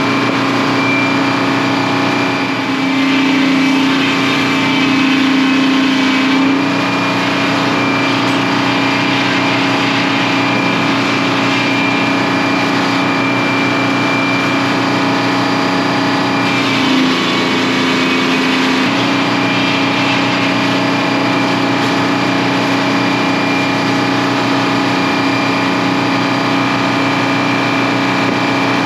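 Stationary engine driving the sawmill, running steadily. Its note rises and gets louder for a few seconds near the start, then shifts again for about two seconds past the middle.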